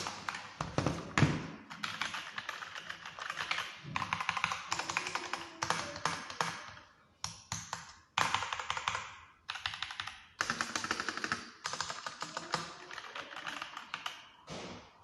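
Fast typing on an 87-key mechanical keyboard: rapid runs of key clacks in bursts, broken by short pauses, with a couple of louder knocks in the first second or so.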